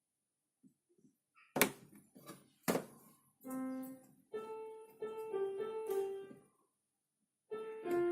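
Two sharp knocks, then a short tune of held, keyboard-like notes, a few of them in a row and then more starting again near the end.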